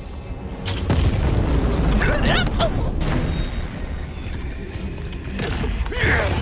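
Cartoon fight sound effects: heavy booming impacts with a low rumble and cracking, crumbling rock, over dramatic music.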